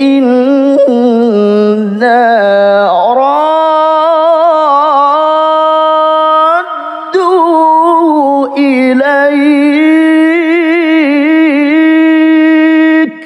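A male qari reciting the Quran in the melodic tilawah style, drawing out long ornamented notes with a wavering vibrato. About three seconds in the voice climbs to a higher held note, and about halfway through it pauses briefly for breath.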